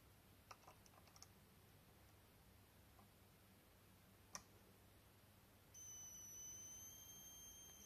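A few faint clicks, then a sudden high-pitched coil whine from the YH11087A 5A MPPT solar regulator starting about two-thirds of the way in and holding steady. As the owner sees it, this is the noise the regulator makes when its current limiter is not limiting the output current.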